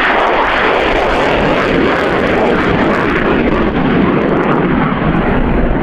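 Aerobatic display aircraft flying overhead: loud, steady engine noise with no clear pitch.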